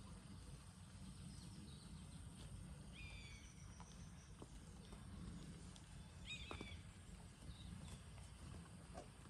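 Faint outdoor farm ambience: a steady low rumble, with short bird chirps about three seconds in and again about six and a half seconds in, and a few faint clicks.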